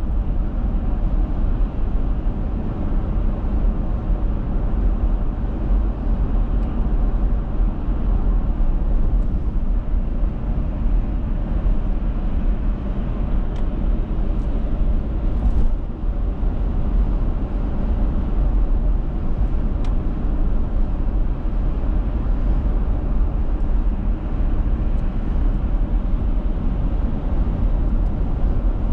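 Steady road and engine noise of a car being driven, heard from inside the cabin: a constant low rumble.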